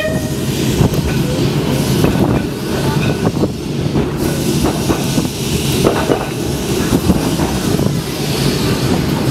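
Open-topped Blackpool boat tram running along its track, heard from on board: a steady rumble of wheels and running gear, with scattered clicks and knocks as the wheels pass over rail joints.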